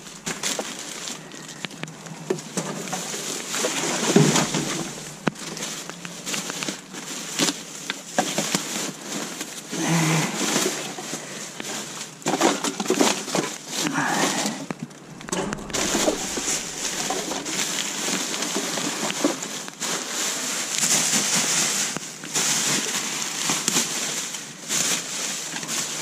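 Rustling, crinkling and knocking of bags and discarded items being rummaged through in a dumpster, an uneven run of small clicks and scrapes.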